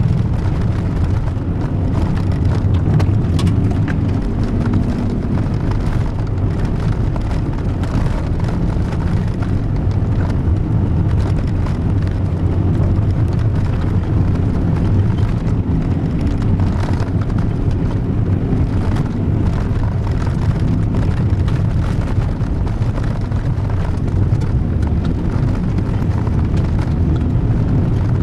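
Inside the cabin of a car with a VW 1.9 turbodiesel, driving on gravel: a steady engine drone and tyre rumble, with scattered ticks of gravel against the underside.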